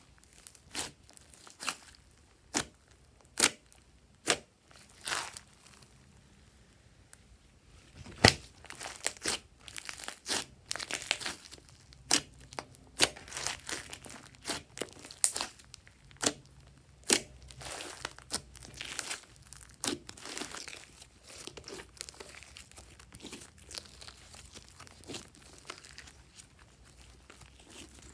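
Glossy slime being squeezed, stretched and folded by hand, giving irregular sharp clicks and crackly pops. These are sparse at first and come thick and fast from about a third of the way in.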